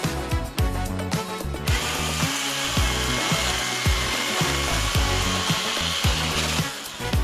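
Milwaukee FUEL battery chainsaw cutting through firewood for about five seconds, starting about two seconds in, over background music with a steady beat.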